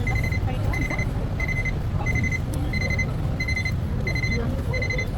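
An electronic beeper sounding a steady run of short, high, even beeps, about three every two seconds, over a low rumble of street traffic.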